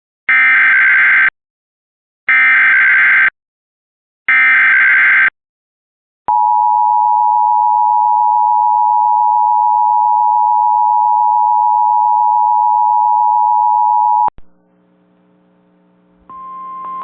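Emergency Alert System tornado warning header: three one-second bursts of warbling digital SAME data about two seconds apart, then a steady attention tone held for about eight seconds that cuts off sharply. Near the end a chord of steady sustained tones begins over a faint hum.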